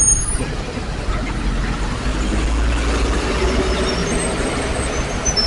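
A heavy road vehicle passing, its engine rumble swelling about two seconds in and easing after about four seconds, over a steady haze of traffic noise.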